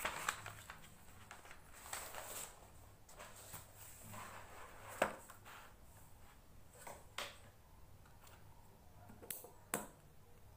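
Paper rustling as a notebook page is turned at the start, then softer paper rustles and a few small, sharp clicks and taps of a pen and desk items being handled. Two quick clicks come close together near the end.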